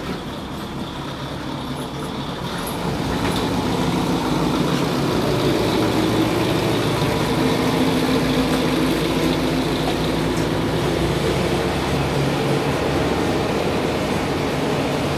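Kiha 20 diesel railcar heard from inside the passenger cabin, its diesel engine and running gear growing louder about three seconds in and then running steadily as the car gets under way.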